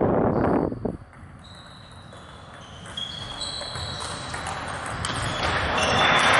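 Table tennis rally: the ball ticking off the bats and the table. A loud rush of noise at the start cuts off suddenly about a second in.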